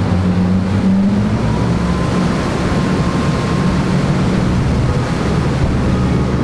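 Fishing boat's inboard engine running hard under way, its pitch rising slightly about a second in, over a steady rush of wind and water.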